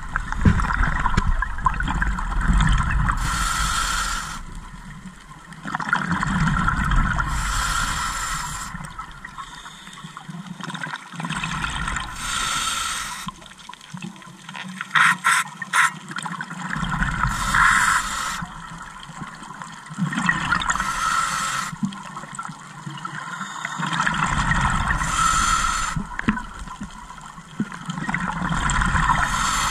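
Scuba diver breathing through a regulator underwater, exhaled bubbles gurgling and rumbling in a regular cycle about every four seconds, each breath ending in a short hiss. A few sharp clicks come about halfway through.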